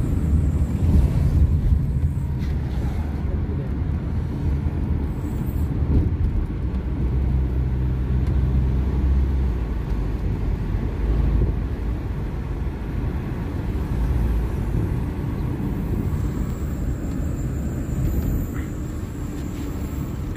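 Inside a moving car: a steady low rumble of engine and tyre noise as the car drives along the road.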